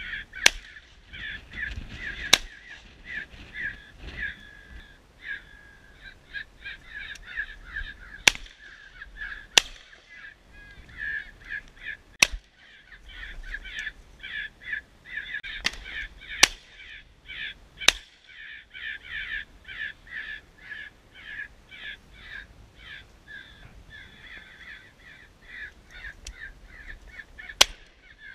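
A flock of crows cawing continuously and excitedly, broken by sharp reports from a 12-gauge over-and-under shotgun, about nine shots spread through, some in quick pairs.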